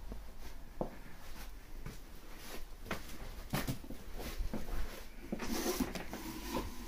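Irregular knocks and clicks of kitchen fittings being handled during dismantling, with a short stretch of rattling and scraping about five and a half seconds in.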